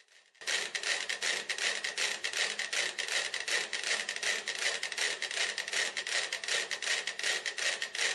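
About thirty mechanical metronomes ticking together on a swinging board, a dense clatter of ticks that are not yet in step. The shared board couples their pendulums, which pulls them toward ticking in unison.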